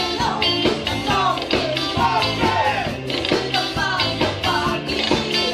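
A live disco band playing: two women singing over keyboard, bass guitar, guitar and drums, with a steady beat.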